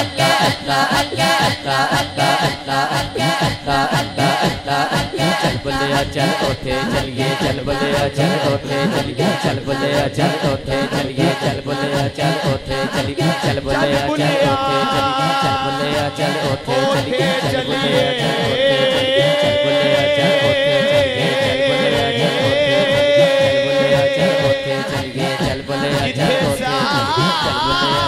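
Devotional kalam sung without instruments. A group of male voices chant 'Allah' to a quick, steady pulse. About halfway through, a solo male singer on a microphone comes in over the chant with long, wavering held notes.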